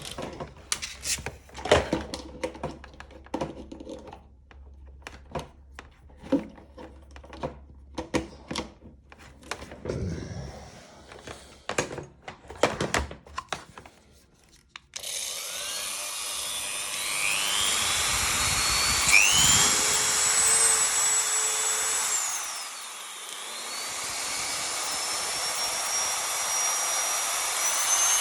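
Small clicks and knocks of handling for about the first half, then a Dremel 3000 rotary tool switched on: its high motor whine glides up and down, drops briefly, then rises again as the variable speed is changed.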